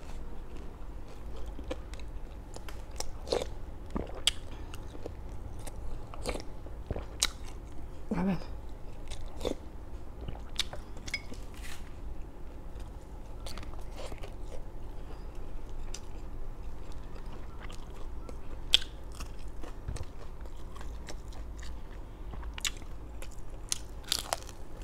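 A person chewing and biting into crispy fried food, with irregular sharp crunches and clicks throughout.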